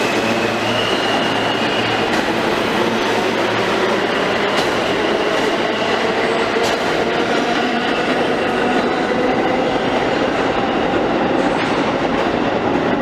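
New York City subway R train pulling out of a station: a loud, steady rumble of wheels on rail, with a faint tone rising slowly in pitch as it gathers speed.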